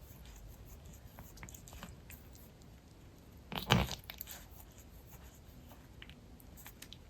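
Tuxedo cat grooming herself: small wet licking and smacking clicks, broken about three and a half seconds in by one short, loud, low farty-sounding noise.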